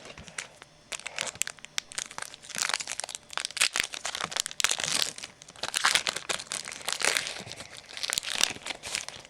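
Foil trading-card pack wrapper being torn open and crinkled by hand, a dense crackling in irregular bursts.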